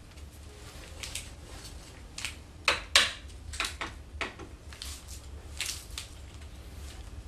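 Small wooden mallet knocking on a long wooden piece held upright: a string of irregular light wooden knocks, the loudest a close pair about three seconds in.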